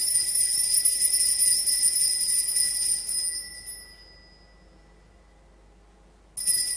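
Altar bells ring at the elevation of the consecrated host, a steady jingling ring that fades out about four seconds in. A second ring starts near the end as the priest bows at the altar.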